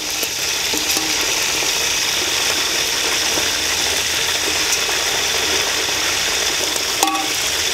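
Whole quails sizzling and crackling steadily in hot oil in an aluminium pot while a steel ladle turns them, with one sharp knock near the end.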